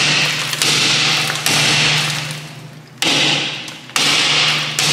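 Hammer blows on the rusted cast-iron front brake rotor of a 1988 Volvo 240, about six strikes roughly a second apart, the rotor ringing after each one. The rotor is rusted fast to the hub and is not coming loose.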